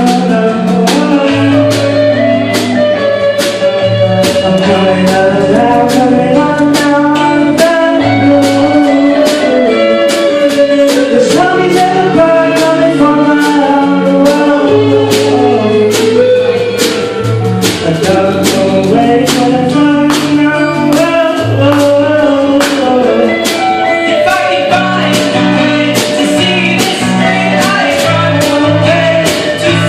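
A band playing a song live: guitar and bass over a steady drum beat, with singing.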